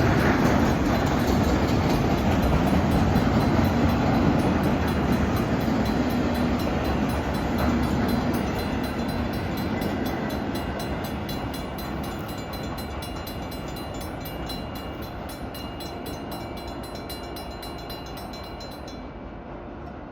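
Freight cars of a Norfolk Southern manifest train rumbling along the rails, fading steadily as the train moves away.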